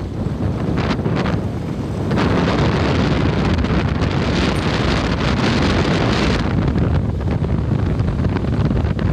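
Wind buffeting the microphone over the low rumble of a vehicle travelling along the road. The wind rush grows louder and brighter from about two seconds in, then eases off again at about six and a half seconds.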